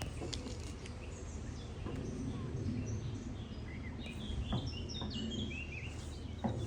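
Small birds singing, a scatter of short high chirping notes that gather into a quick run of notes about four to six seconds in, over a steady low rumble, with a couple of sharp knocks.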